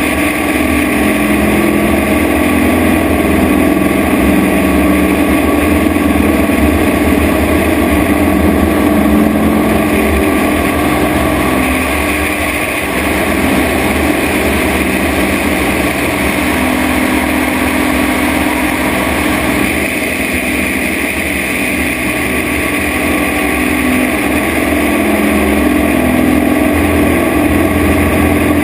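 Christen Eagle biplane's piston engine and propeller running at power through aerobatic manoeuvres: a loud, steady drone that shifts slightly in tone about a third and about two-thirds of the way in as the manoeuvres change.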